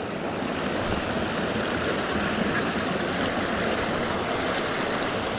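Steady rushing of a creek swollen with rain runoff.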